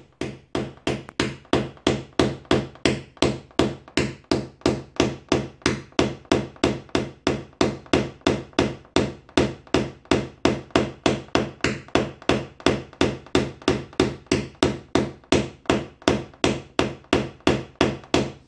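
Paintless dent repair tap-down: a white-tipped knockdown punch held on a ZAZ Chance's steel bonnet is struck with light, even taps, about four a second, each leaving a brief ring in the panel. The taps work the metal around a hail dent down level.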